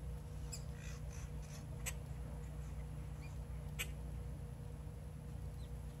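Outdoor background of a steady low rumble and a thin steady hum, with two sharp clicks about two and four seconds in and a few faint high chirps in the first second or so.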